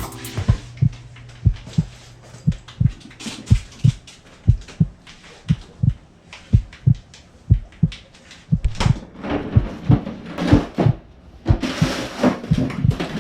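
Heartbeat sound effect: low, paired thumps about once a second. Denser rustling and knocking join in over the last few seconds.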